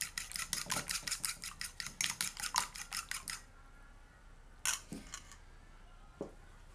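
A fork beating raw eggs in a ceramic bowl, tapping the bowl in a quick, even run of clicks, about seven a second, that stops about three and a half seconds in. A few single clinks follow.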